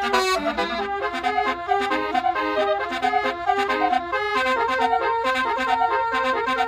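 Basuri telolet horn playing a fast tune of short stepped notes, several sounding at once, without a break.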